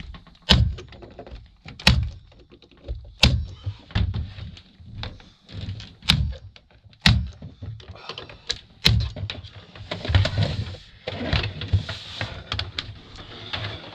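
Nail gun firing into wooden ceiling cladding: a run of sharp thunks, about seven over nine seconds and spaced unevenly. Then a few seconds of scraping and rustling.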